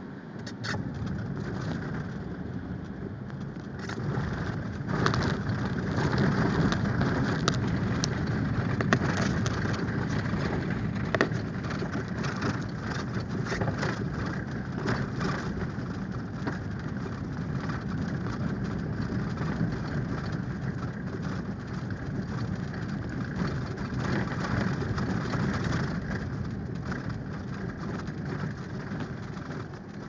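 Inside a car driving on a snow-packed, slushy road: steady engine and tyre noise, with scattered sharp clicks and ticks throughout. The road noise grows louder about four seconds in and eases again near the end.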